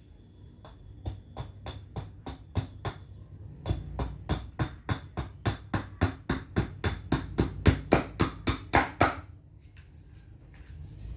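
A hammer striking rapidly and evenly, about four blows a second, growing louder and then stopping about nine seconds in.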